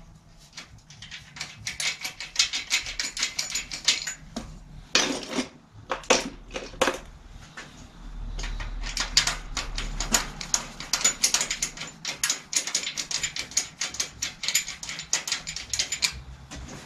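A 10 mm ratchet socket wrench clicking in several runs of rapid clicks with short breaks between them, as the chain tensioner nuts on a bicycle's rear axle are loosened.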